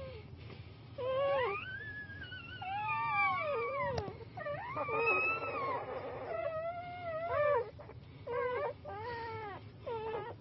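Newborn Kangal puppies crying: a string of high-pitched whining cries that rise and fall in pitch, some short, some drawn out over a second or more. A single sharp click about four seconds in.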